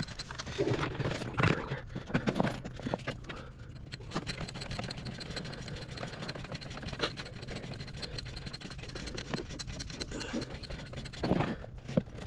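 Fibre-optic flat drop cable being pushed by gloved hands through a metal service mast and its LB fitting: irregular scraping, rubbing and light knocks of cable and glove against the metal, over a steady low hum.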